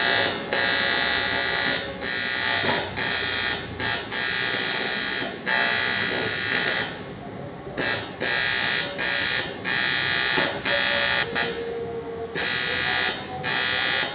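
Argon (TIG) welding arc on aluminium, a steady buzzing that stops and restarts in short breaks, with two longer pauses about halfway through and near the end.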